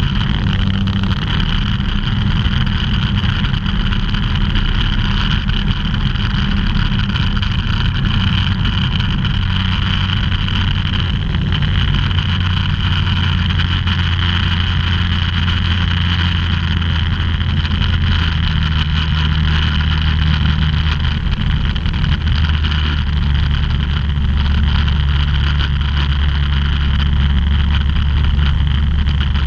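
An ultralight aircraft's engine and propeller drone steadily, heard inside the cockpit, with rushing air over the cabin. The engine note shifts slightly a little past the middle.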